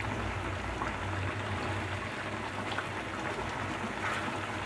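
Thick chicken roast gravy simmering and bubbling in a pan, stirred with a spatula that ticks against the pan now and then, over a low steady hum.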